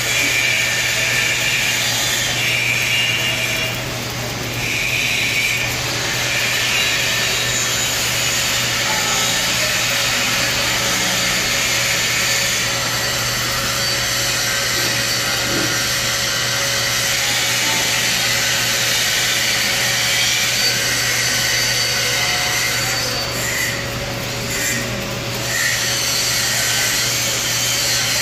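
TIG welding arc burning steadily on a pipe test coupon while filler rod is fed in by hand during the fill pass: a continuous hiss over a low steady hum, dipping briefly twice.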